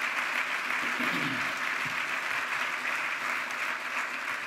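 Audience applauding: many hands clapping in a steady, dense patter that holds at an even level.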